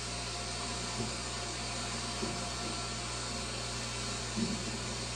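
Aquarium equipment running: a steady low hum with an even hiss over it.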